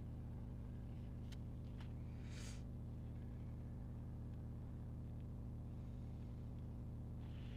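Steady low electrical hum underlying a quiet tabletop scene, with a few faint taps and one brief paper rustle about two seconds in: handling of sticker sheets.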